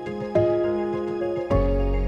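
Calm new-age background music with gently struck, sustained notes; about one and a half seconds in a deep low note enters and the music gets louder.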